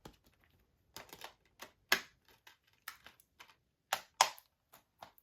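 Plastic Blu-ray case being handled: a string of irregular sharp clicks and snaps, the loudest about two seconds in and again about four seconds in.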